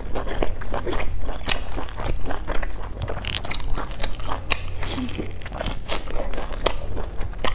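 Chewing and crunching of a pan-fried chive box, its crisp fried crust crackling in quick, irregular snaps as it is bitten and chewed.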